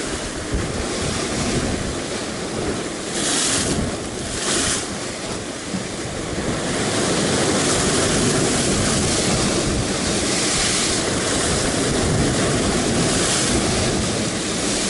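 Rough sea surf breaking and foaming against rocks close by, a continuous wash with short louder hissing surges as waves hit. Wind buffets the microphone, and the surf grows louder from about six seconds in.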